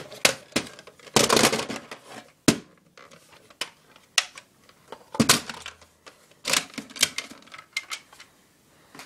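Plastic clicks, knocks and rattles of a Nerf Recon blaster and its clip being handled while loading a dart, with a longer scraping rattle about a second in and a sharp click soon after.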